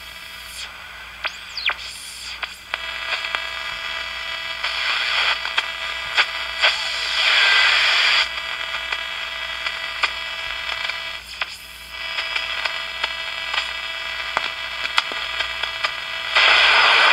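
AM radio tuned between stations and turned up full, giving steady static hiss with clicks and a whistle that glides past about a second and a half in. The hiss surges louder several times. This is the sign that the local oscillator of the GE P805A transistor radio is oscillating.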